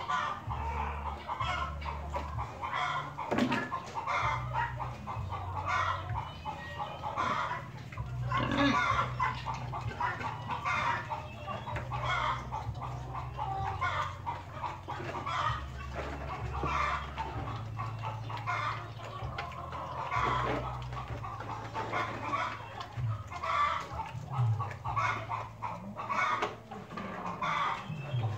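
Chickens clucking, short calls coming several times a second, over a low steady hum.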